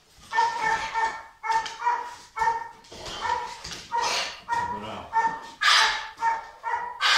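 Belgian Malinois-type police dog barking steadily and forcefully at a helper while straining on its leash, about two sharp barks a second, during protection (bite-work) training.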